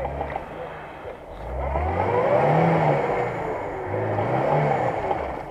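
Lada Niva's engine revved hard twice, its pitch rising and then falling each time, as the car sits stuck in deep mud with its wheels spinning and throwing mud.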